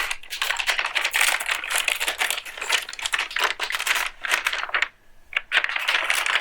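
Plastic anti-static bag crinkling and rustling in close, dense crackles as a motherboard is pulled out of it, with a brief pause about five seconds in.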